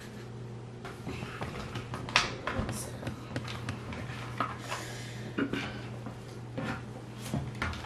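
Oosh putty packaging being handled and opened: scattered plastic clicks and crinkles, a few every couple of seconds, over a steady low hum.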